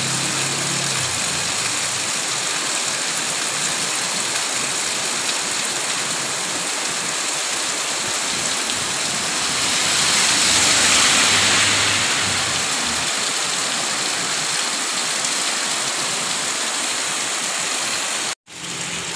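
Heavy rain pouring steadily onto a wet street, an even hiss that swells louder for a couple of seconds about halfway through, with a faint low engine hum underneath at times. The sound cuts out for an instant near the end.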